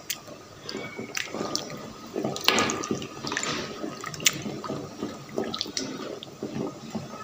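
Water sloshing and bubbling in a pot of hot water where whole cabbage heads are being blanched before freezing, as a metal spoon turns the leaves. A few sharp clicks come now and then.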